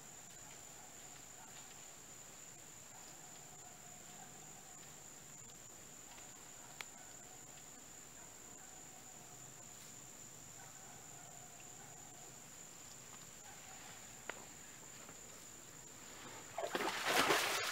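A steady high-pitched insect drone of crickets, with a fainter broken trill lower down and two faint clicks. About a second before the end, a much louder burst of close-up noise breaks in.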